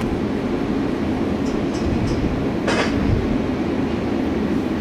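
South Western Railway Class 707 electric multiple unit standing at the platform, with a steady low rumble from its running equipment. A few short clicks come around two seconds in, and a brief hiss follows just before three seconds.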